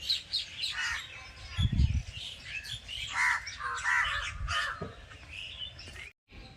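Several birds calling and chirping in quick, overlapping short calls, with a brief low rumble about two seconds in and a momentary dropout to silence near the end.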